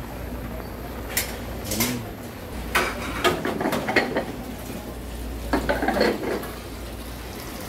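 Metal pots, lids and dishes clinking and clattering as they are handled at a restaurant kitchen range, in a few short spells of clinks, over a low steady hum.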